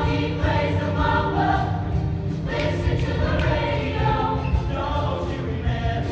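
Show choir singing together in harmony over loud musical accompaniment with a strong, continuous bass.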